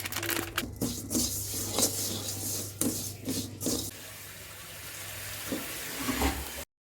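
Water running from a tap, with scattered light knocks and clinks; the sound cuts off abruptly near the end.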